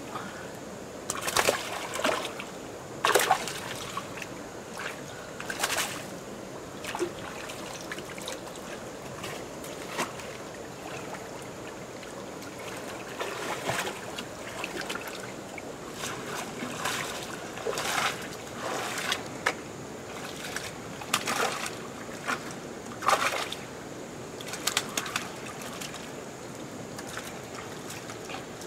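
Hands splashing and sloshing in shallow muddy water while groping for fish, in irregular short splashes every second or so, over a steady trickle of water.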